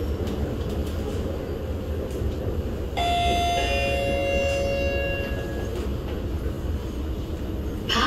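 C751B metro train's onboard two-note chime: a higher note about three seconds in, then a lower one, both ringing out over about two seconds. This is the chime ahead of the next-station announcement. Under it the steady low rumble of the train running.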